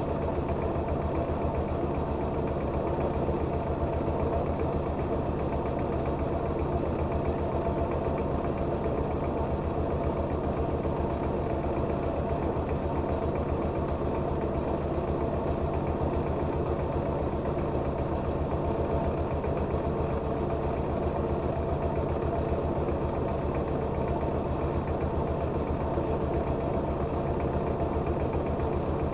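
A rice milling machine running steadily, with an even, rapid engine pulse.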